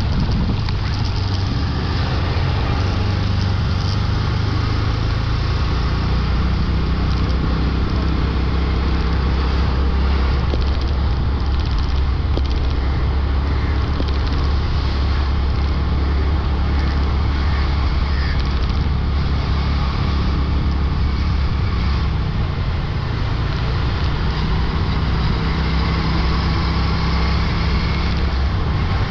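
Motorbike engine running steadily while riding, with busy road traffic around it.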